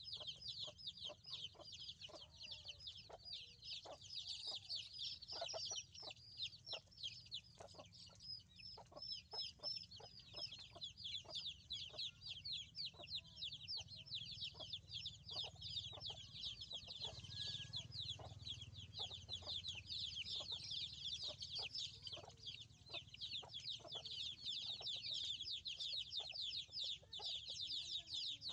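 Chickens: a dense, continuous high-pitched chirping with scattered lower clucks.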